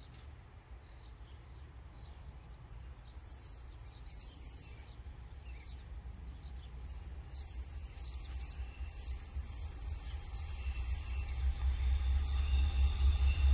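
Distant approaching freight train: a low rumble that grows steadily louder, with birds chirping over it during the first half.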